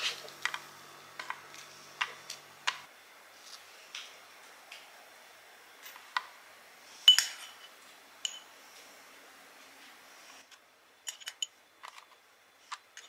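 Light food-prep clatter: scattered soft taps and clicks as small toasts are laid on a wooden board and cocktail sauce is spooned from a ceramic ramekin, with one sharper ringing clink about seven seconds in and a quick run of taps near the end.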